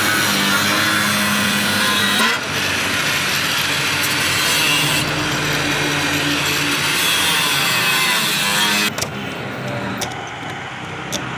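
Electric angle grinder cutting metal at a car's front number-plate mount. It runs steadily, stops suddenly about nine seconds in, and is followed by a few light clicks and knocks.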